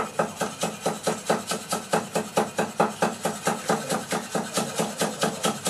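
Steady, rapid chopping with a Chinese cleaver on a chopping board, about five strokes a second.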